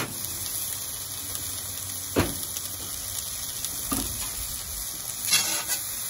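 Zucchini and onions sizzling in a carbon steel paella pan over a charcoal grill: a steady hiss. A few sharp clinks and scrapes of a metal spatula on the pan come about two and four seconds in and cluster near the end as the vegetables are stirred.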